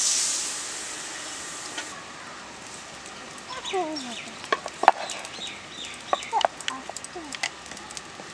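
Water poured into a hot wok of frying chicken hisses and sizzles loudly, fading away over the first two seconds. Then, more quietly, a hen clucks a few times among light clicks and taps of steel utensils.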